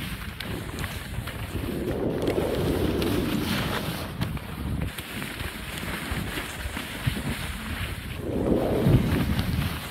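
Wind rushing over a handheld microphone during a fast ski descent, with skis hissing and scraping over chopped-up snow. The rush swells twice, once early and again near the end.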